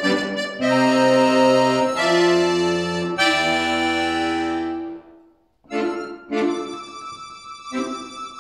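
Scandalli piano accordion played solo: a quick run of notes, then three loud held chords with bass notes underneath that fade away into a brief pause, after which short detached chords start up again.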